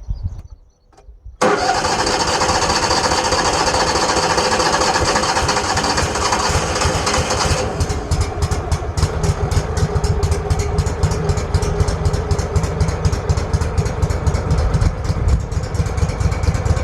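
Wood-Mizer LT15 Wide sawmill's engine starting about a second and a half in and running loudly, then about 7.5 s in settling into a lower, evenly pulsing idle.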